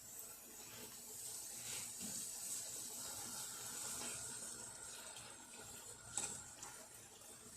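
Small balls of bread dough frying in medium-hot oil, a faint steady sizzle, with a light knock about six seconds in.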